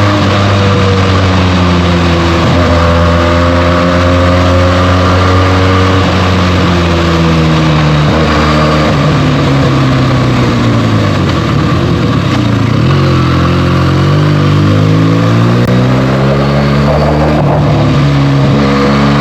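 Benelli TNT 300 parallel-twin engine on its stock exhaust, under way on the road. The engine note holds steady, drops as the bike slows about a third of the way in, then rises again as it picks up speed and settles.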